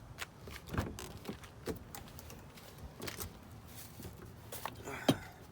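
Scattered light clicks and knocks of things being handled, with one sharper knock about five seconds in.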